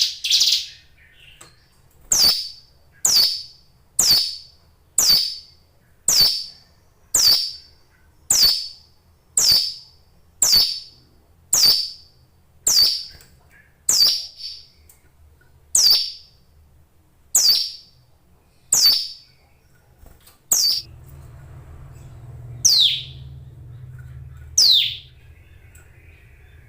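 A ciblek gunung, a small songbird, calling with a series of sharp, high chirps, each sweeping downward, repeated about once a second and then more slowly with a few lower notes near the end.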